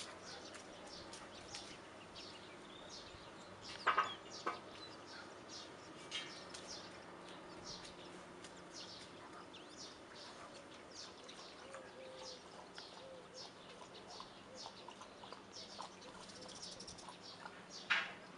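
Small birds chirping on and off in the background, with a faint steady hum under them. A few louder short sounds stand out about four seconds in and again near the end.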